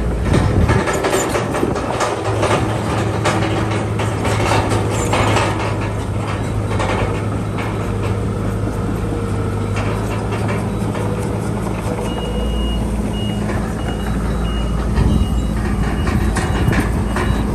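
A crawler bulldozer's diesel engine runs steadily while its metal tracks clank. From about twelve seconds in, a reversing alarm beeps repeatedly over it.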